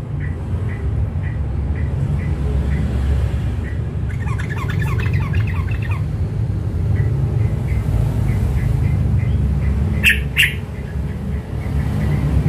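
Caged yellow-vented bulbul calling: a steady run of short chip notes about three a second, a burst of rapid chattering about four seconds in, and two loud, sharp, harsh calls near the end, over a constant low hum.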